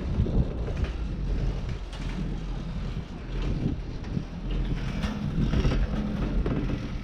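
Wind rushing over the microphone on a moving chairlift, a steady low rumble with faint clicks scattered through it.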